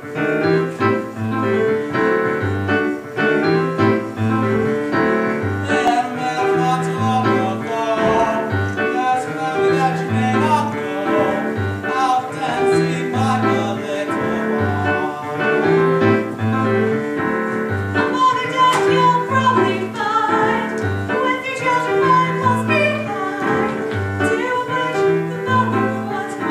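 Piano-led music with a repeating bass line under a melody.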